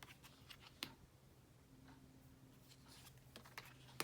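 Near silence with a few faint clicks and light taps of linen-finish playing cards being handled, a sharper tap just under a second in and another at the very end.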